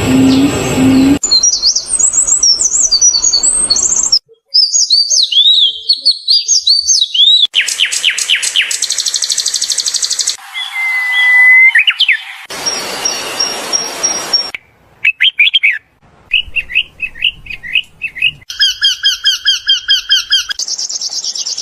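A run of different birds' calls and songs, one short recording after another, each switching abruptly to the next every two or three seconds: fast chirps, quick repeated trills, and whistled notes.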